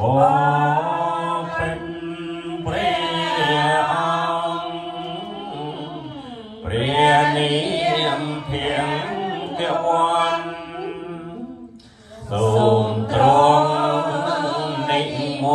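Khmer Buddhist chanting by a woman through a microphone: long sung phrases of recitation, with short breaks about six and a half and twelve seconds in.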